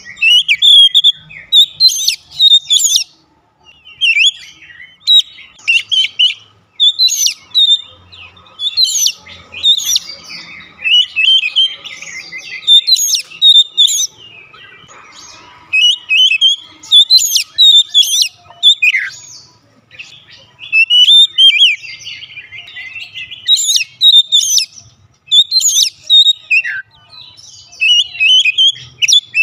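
A male Oriental magpie-robin singing a loud, varied song of quick whistles, trills and chirps. The phrases follow one another almost without pause.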